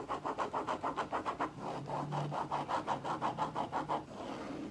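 Pen scribbling back and forth on paper in a spiral planner, crossing items off a to-do list: quick scratchy strokes at about eight a second, stopping about four seconds in.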